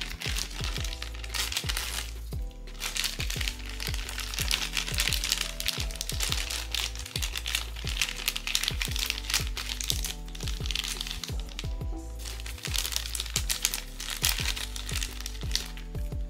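Plastic packaging crinkling and crackling as it is handled and opened, heaviest a few seconds in and again in the last third, over background music with a steady beat.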